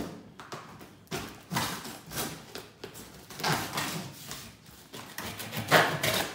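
Packing tape on a cardboard shipping box being cut and torn and the cardboard flaps scraped and pulled open, in several short scraping bursts, the loudest near the end.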